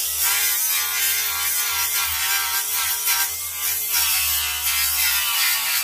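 Mastercraft cordless angle grinder running steadily with its disc ground against the steel mower deck, a loud, even high whir.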